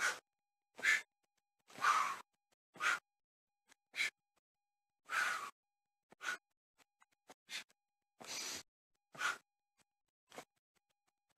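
A man doing burpees: short noisy bursts about once a second, from his hard breathing and his shoes scuffing on the path, with near silence between them.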